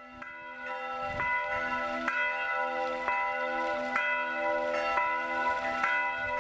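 Church bells ringing, struck about once a second, each stroke ringing on into the next; the sound fades in at the start.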